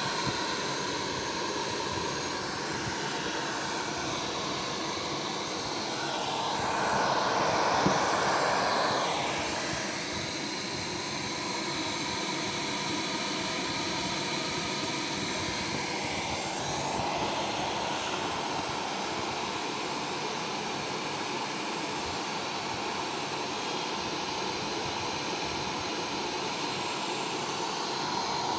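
Philips BiPAP A40 ventilator's blower running with a steady rush of air that swells louder twice, about a quarter of the way in and again past the middle.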